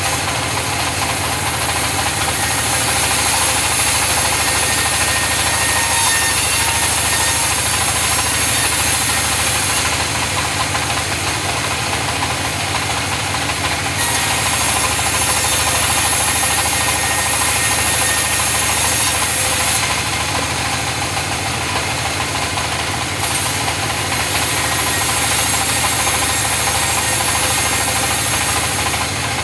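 Engine-driven wood saw running steadily through mahogany timber, the hiss of the blade in the wood fading and returning every few seconds.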